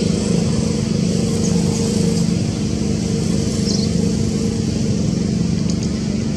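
Steady low drone of a running engine, unbroken and even in level, with a few short high chirps over it.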